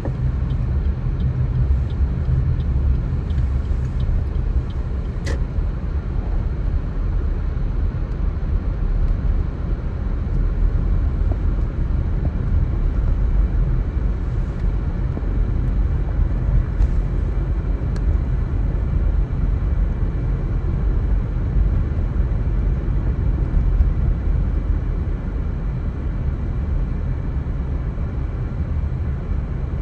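Steady low rumble of a car driving, road and engine noise, with a sharp click about five seconds in.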